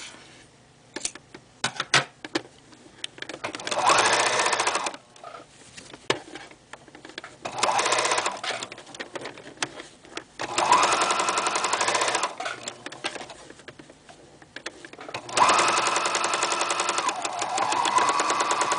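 Electric domestic sewing machine stitching in four short runs, its motor whine rising as it speeds up and falling as it slows to a stop each time. A few scissor snips come about one and two seconds in.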